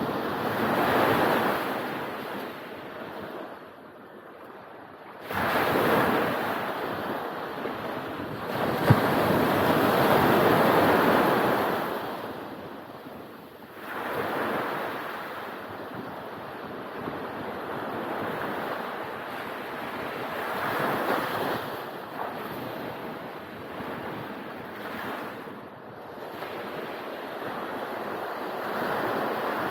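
Ocean waves breaking and washing up the beach, the surf swelling and fading in surges every few seconds. A single brief knock about nine seconds in.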